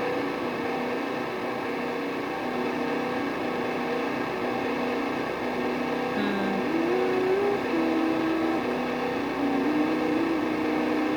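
Guitar played through a Wampler Ethereal delay and reverb pedal: a dense, droning wash of held, overlapping notes, with a few notes sliding upward about the middle.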